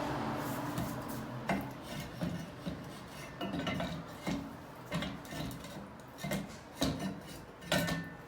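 Metal tools and pipe fittings clinking, knocking and scraping while a water meter is worked out of its pipework: irregular sharp clicks and knocks, some with a brief metallic ring.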